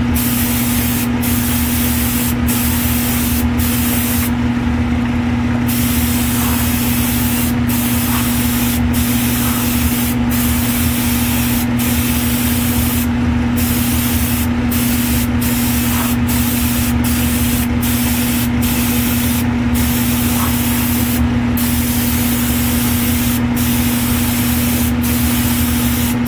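Siphon-feed airbrush spraying 2K urethane clear coat in a steady hiss, cut off briefly about once a second as the trigger is let go, with a few longer pauses. A steady motor hum runs underneath.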